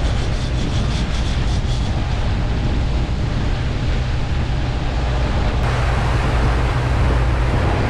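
Fishing boat's engine running steadily at trolling speed, a low hum under the rush of the wake. The water noise turns brighter and hissier about two thirds of the way through.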